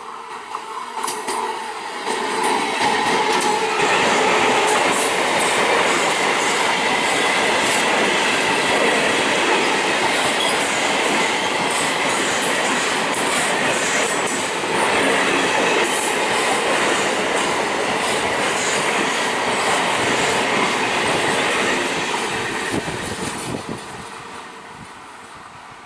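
Passenger express train passing at speed, its coaches clattering over the rail joints with wheel squeal on the curve. It builds about two seconds in, holds loud for some twenty seconds, then fades as it moves away.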